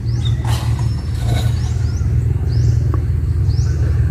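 Crawler excavator's diesel engine running steadily with a deep, even hum, and a few short knocks over it.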